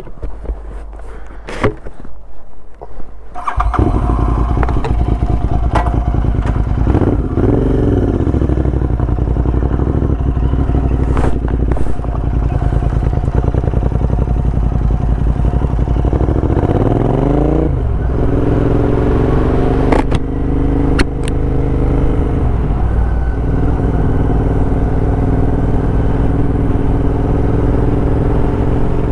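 Royal Enfield Interceptor parallel-twin engine, bored out to 865cc and running high-flow headers and mufflers, pulling away from a standstill. The exhaust note comes in loud about three and a half seconds in. It rises in pitch and drops back twice as the bike shifts up through the gears, then settles into a steady cruise with a slowly climbing note.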